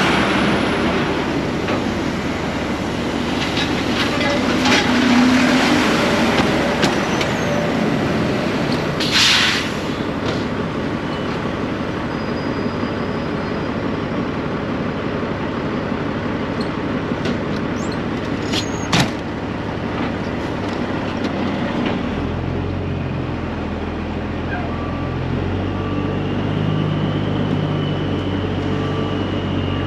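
Diesel semi-truck engine running steadily, with a short hiss of air about nine seconds in and a sharp click around two-thirds through. Near the end the engine settles into a steadier low hum.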